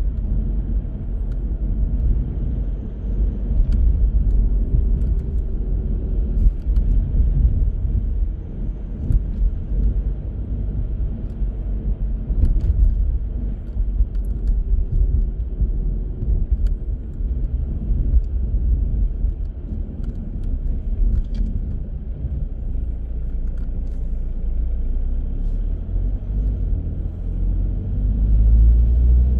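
Car driving through city streets: a steady low rumble of engine and tyres on the road, with faint tones that shift in pitch now and then and a few faint clicks. The rumble swells near the end.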